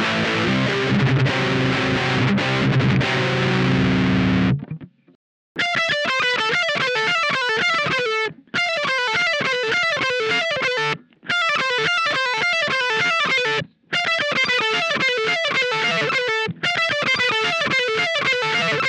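Distorted electric guitar played through effects, stopping abruptly about four seconds in. It is followed by five short clips of the same descending phrase of plucked notes, each ending sharply after a brief gap: instrument test samples recorded through different TRS patch cables for comparison.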